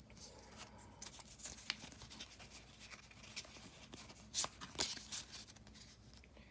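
Digimon trading cards being handled and sorted in the hands: faint rubbing of cards sliding against each other, with a few light clicks, the loudest a little past four seconds in.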